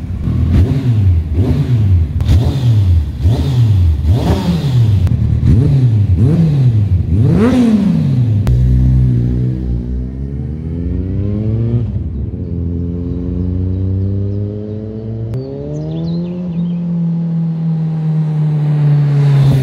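Kawasaki ZZR1400's inline-four through a Black Widow aftermarket exhaust, blipped at a standstill about once a second, eight short revs with the last one higher. Then the bike pulls away under acceleration, the pitch climbing in each gear, with two upshifts.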